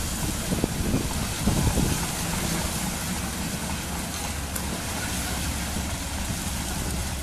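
Steady running of the diesel launch tractor's engine as it moves the lifeboat on its tracked carriage over shingle, with a hiss of wind over the microphone.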